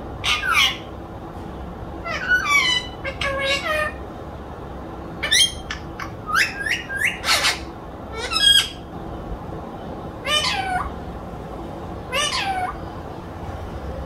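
Green parakeet giving a string of about ten short squawking calls and chatter, many sliding down in pitch, in irregular bursts with short pauses between.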